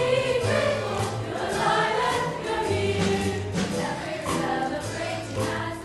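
Background music with choral singing over a sustained bass, fading near the end.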